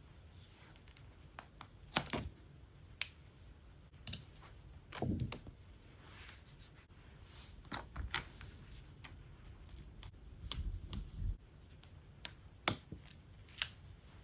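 Hand handling sounds: scattered sharp clicks and light taps, with a few brief rustles, about 2 s, 5 s and 11 s in.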